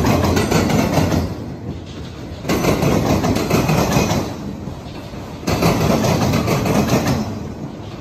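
Empty auto rack freight cars rolling past, their wheels rumbling and clacking on the rails and the empty rack bodies rattling. The noise swells into loud surges about every three seconds: at the start, about two and a half seconds in, and again about five and a half seconds in.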